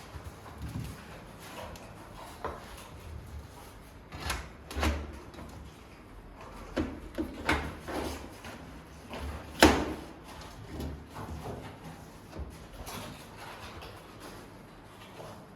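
Knocks and clunks of a metal DVR rack's parts being handled and fitted together, in irregular clusters, the loudest single knock about ten seconds in.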